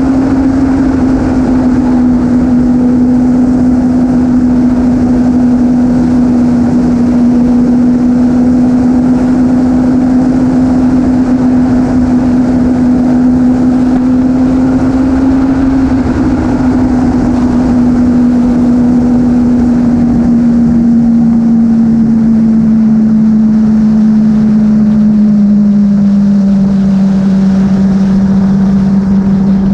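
Motorcycle engine running at steady highway cruise, its drone holding level and then dropping a little in pitch over the last several seconds as the revs ease, under constant wind rush on the microphone.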